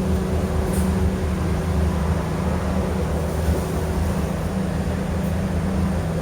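City bus running at a steady pace, heard from inside the cabin: a continuous low drone with a steady hum.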